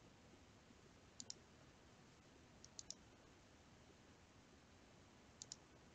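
Computer mouse clicking: three quick pairs of clicks over near-silent room tone.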